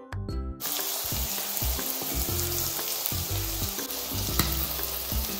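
Food frying in hot oil in a pan: a steady sizzle that starts suddenly about half a second in, over background music.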